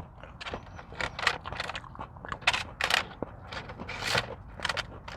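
Close-up eating and food-handling noises: irregular crunches, scrapes and rustles of takeout food and its packaging, several a second at times.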